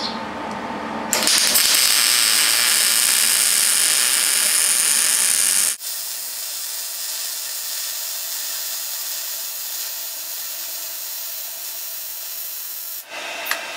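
MIG welder arc hissing and crackling as a bead is run joining a thick steel bearing flange to a thin 16-gauge plate. The arc strikes about a second in, drops suddenly to a quieter, thinner hiss about halfway through, and stops near the end.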